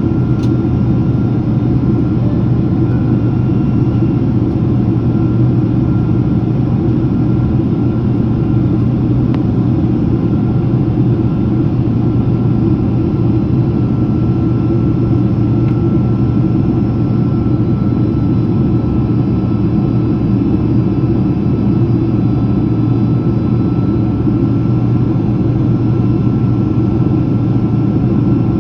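Steady in-flight cabin noise of a Boeing 767-300ER airliner descending on approach: an even roar of engines and airflow, strongest in the low range, with a faint steady whine above it.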